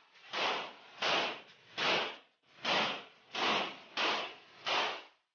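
A rhythmic series of seven short hissing whooshes, about one every three-quarters of a second, each swelling and fading, then cutting off abruptly.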